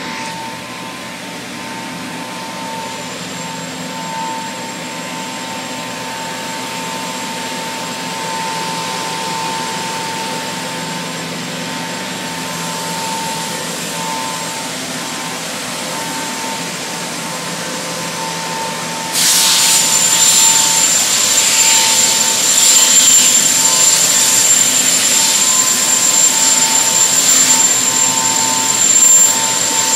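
Steady machine noise with a constant whine; about two-thirds of the way through, a louder hissing machine with a high-pitched whine starts abruptly and keeps running.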